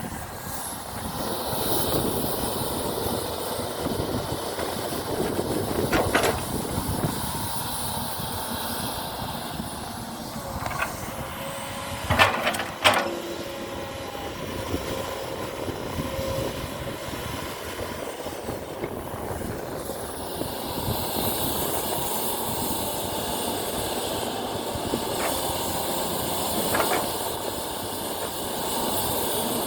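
Radio-controlled model excavator working: a steady whirring hiss from its motors and hydraulics. There are a few sharp knocks, and the loudest pair comes about twelve seconds in.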